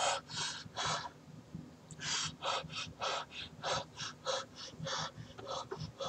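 A man panting hard through his open mouth in short, sharp breaths: three in the first second, then after a pause a quick run of about three a second. He is trying to cool the burn of a scorpion pepper he has just eaten.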